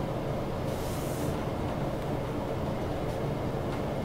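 Steady low background hum, with a faint brief scratch about a second in.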